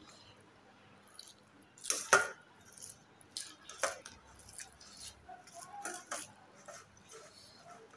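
Eating a meal by hand from a plate: scattered, irregular clinks and scrapes against the plate mixed with chewing sounds. The loudest is a sharp clack about two seconds in.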